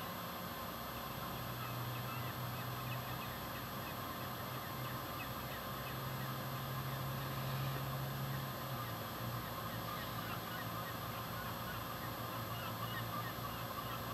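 Many birds calling in short, scattered calls over a steady hiss, with a low steady hum that drops slightly in pitch about eight and a half seconds in.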